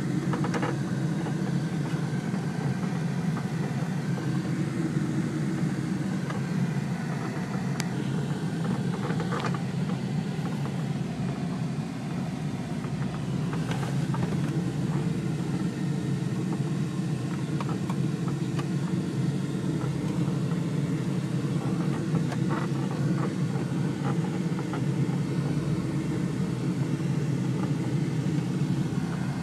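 Pickup truck driving slowly over a rough dirt pasture track, heard from inside the cab: a steady engine and tyre rumble with a few light knocks and rattles.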